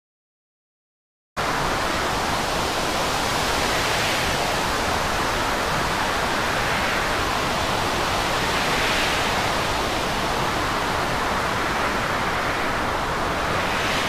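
Silence for about a second, then a steady rush of storm wind and rough sea, swelling and easing a few times.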